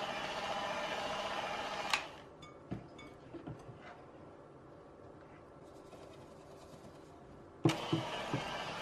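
Electric hand mixer whipping egg whites into meringue in a glass bowl, running with a steady hum, then switched off with a click about two seconds in. A few light knocks follow in the quiet, and the mixer is switched back on with a click near the end.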